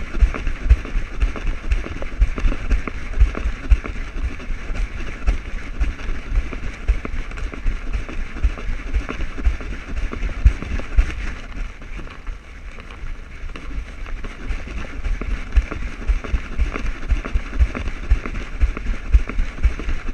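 Husky–shepherd mix trotting over desert ground, heard through a camera strapped to its back: a steady rhythm of low thumps from its stride jolting the mount, over a constant rushing hiss. The thumping eases and the sound goes quieter about twelve seconds in, then picks up again.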